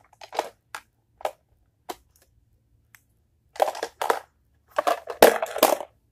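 Hard plastic nail polish case being handled: a few light clicks as a bottle goes back in and the clasp is worked, then louder rattling and clattering about three and a half seconds in and again near the end as the case is picked up and moved.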